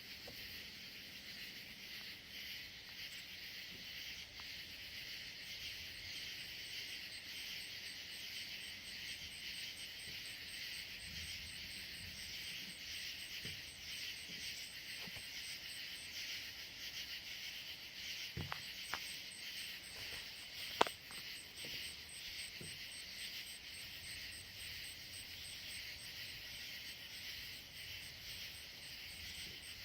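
Summer night insect chorus: a steady, dense high chirring with a thinner, faster pulsing trill above it that pauses briefly in the middle. A single sharp click about two-thirds of the way through.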